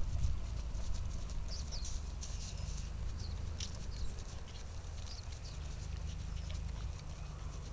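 Hooves of a Quarter Horse mare trotting on grass turf, soft muffled hoofbeats under a steady low rumble, with scattered high chirps.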